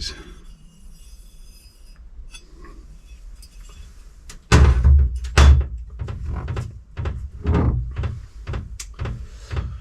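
A few faint clicks, then about halfway through an uneven run of heavy knocks and thunks, the first two loudest. These come from a Valeo electric supercharger being struck or worked while it is taken apart.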